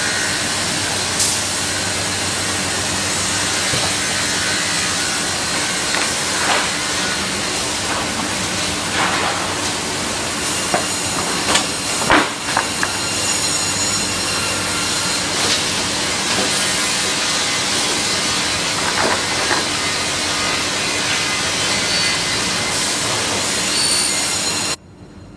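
Automatic CNC sawmill line running: a steady loud hiss of machinery with a low hum and occasional sharp knocks and clunks of wood and metal, strongest about halfway through. The sound cuts off suddenly near the end.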